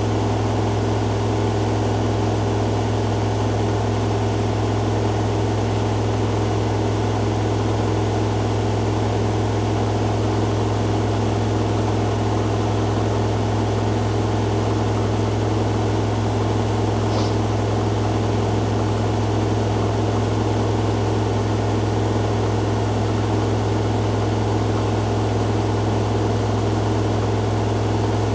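Hoover Dynamic Next front-loading washing machine in its spin cycle: a steady hum with a strong, unchanging low tone.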